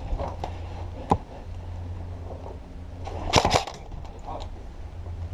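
Airsoft guns firing: a single sharp shot about a second in, then a quick burst of about four shots a little past the middle.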